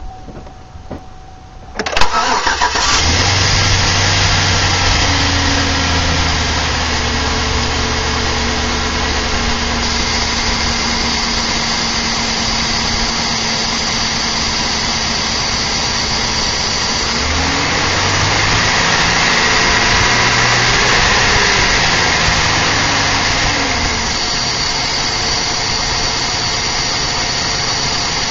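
Chevrolet Silverado pickup's engine cold-started in winter, heard from the open engine bay. After a few clicks it cranks and catches about two seconds in, then runs at a steady fast idle. Past the middle the engine note rises and swells for several seconds before settling back.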